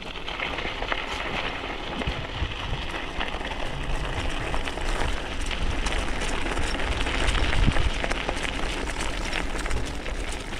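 E-bike rolling along a trail: the tyres give a steady crackling hiss over the ground, with wind rumbling on the microphone underneath.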